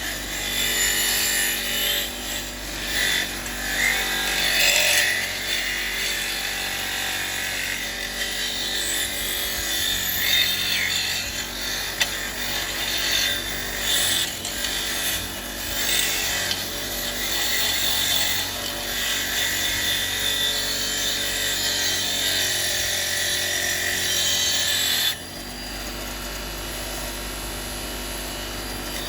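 Powered wire brush scouring rust off a small steel spanner: a steady motor hum with rough, uneven scratching as the spanner is worked against the bristles. The scratching stops about four seconds before the end, leaving the motor running on its own.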